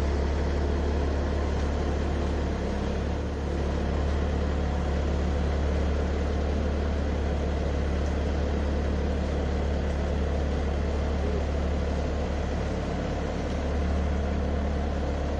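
Bobcat skid-steer loader's engine running steadily at a low idle, a constant low hum.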